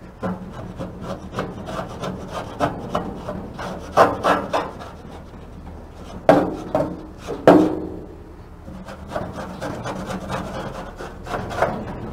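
Grill scraper wrapped in a rag scraping and rubbing along the metal floor and rails of a Blaze gas grill's firebox, loosening baked-on grease and debris. It goes in quick repeated strokes, with a few harder scrapes about four seconds in and again between six and seven and a half seconds.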